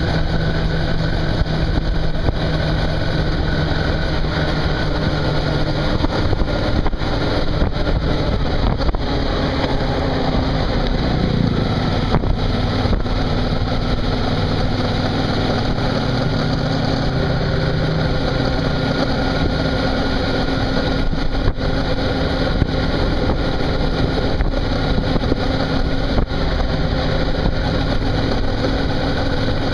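Suzuki V-Strom motorcycle engine running steadily while riding along a road, under a constant rush of wind and road noise. The engine note drops lower about eleven seconds in.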